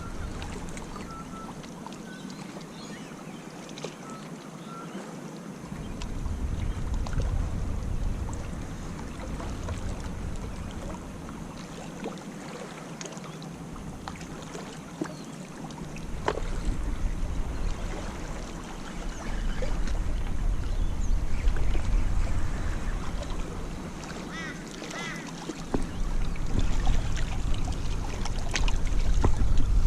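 Wind buffeting the microphone in gusts, over a steady wash of surf on a beach, the rumble getting louder near the end.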